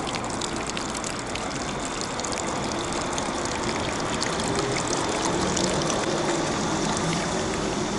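Water from a stone street fountain's spout pouring and splashing steadily into its basin, with a constant patter of droplets. A low hum joins in about halfway through.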